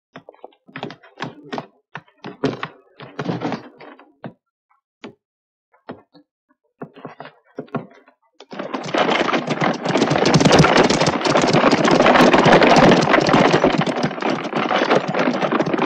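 Scattered knocks and thuds, then from about eight and a half seconds in a horse-drawn carriage rattling along in a dense, continuous clatter.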